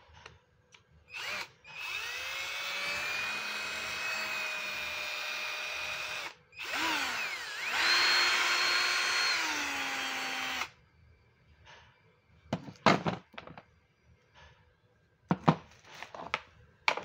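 Red Horse cordless drill motor running free with no load: a short blip, then about four seconds of steady whine after it spins up. After a brief stop comes a second run at higher speed that slows near its end. Several sharp knocks and clatters of handling follow.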